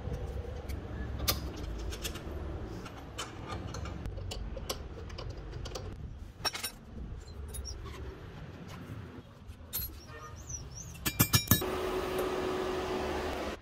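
Workshop handling noises: light clicks and knocks from tools and metal parts, a quick rattle of sharp clicks about eleven seconds in, then a steady hiss with a faint hum near the end.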